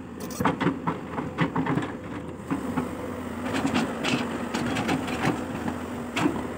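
Excavator engine running steadily while the machine digs, with many short clanks and knocks of the bucket and arm in the soil, thickest in the first couple of seconds and once more sharply near the end.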